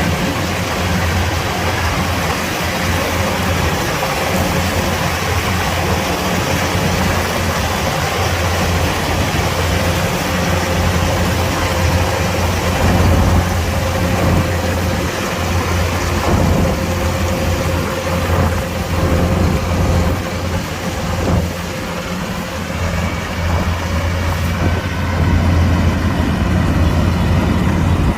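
Kubota DC-105X combine harvester's diesel engine running steadily, a continuous low hum with a faint steady whine over it.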